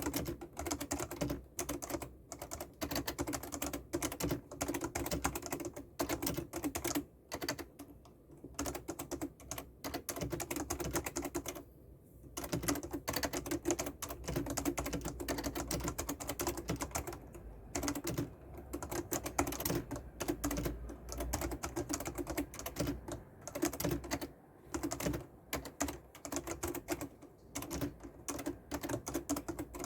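Continuous fast typing on a Fujitsu FKB4725 Peerless keyboard, its spring-over-rubber-dome switches clacking under PBT keycaps, with brief pauses between bursts.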